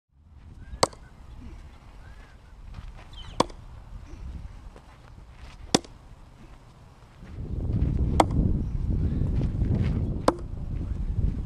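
A thrown Dawson Raider 5 knife striking a wooden post: five sharp knocks about two and a half seconds apart. About seven seconds in, a low rumbling noise sets in beneath them.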